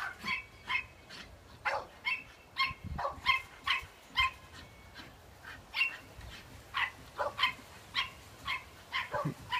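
Two small dogs barking repeatedly at a goat, about two high-pitched barks a second, with a short pause about halfway through.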